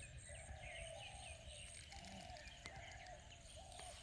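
Faint birdsong: a quick series of short chirping calls with lower drawn-out notes, over a low background rumble.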